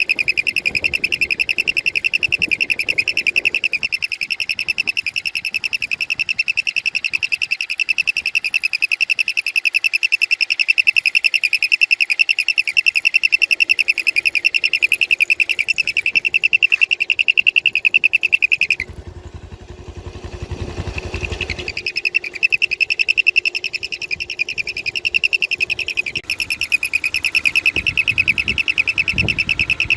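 A loud, steady, high-pitched trilling tone, cricket-like. It breaks off for about three seconds just before two-thirds of the way through, where a low rumbling noise fills the gap, then resumes.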